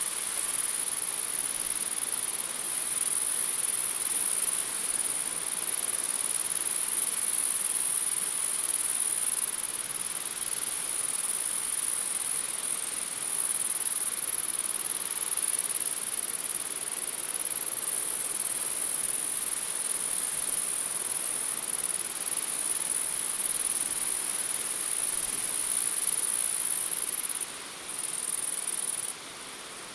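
A chorus of singing crickets and grasshoppers: a steady, high-pitched continuous buzz that cuts out briefly twice near the end.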